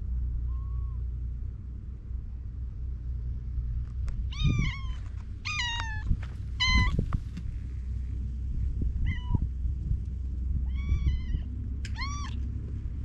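Stray cat meowing repeatedly: a faint meow near the start, then about six short, loud meows over the last two-thirds, several falling in pitch. A steady low rumble runs underneath.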